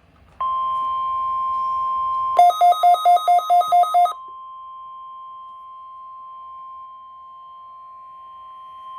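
NOAA Weather Radio 1050 Hz warning alarm tone, a steady single-pitched tone sounded as part of the weekly test. About two seconds in, a louder pulsed beeping alarm of about eight quick beeps sounds over it for under two seconds. The tone then carries on more softly.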